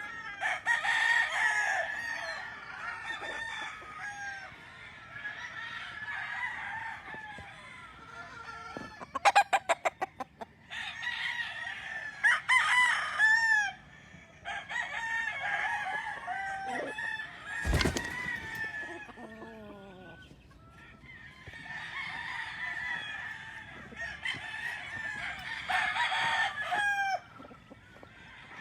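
Roosters crowing and hens clucking, several birds calling over one another. About a third of the way in comes a quick run of sharp clacks, and a little past the middle a single sharp knock.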